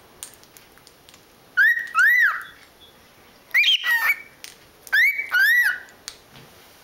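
Cockatiel whistling: three bursts of short whistled notes, mostly in pairs, each note rising and falling in pitch, about one and a half seconds apart.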